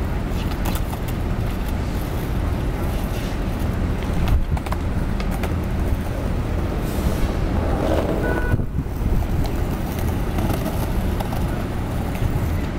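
Steady city street traffic noise with a few sharp clacks of skateboards on concrete paving, the loudest a little over four seconds in.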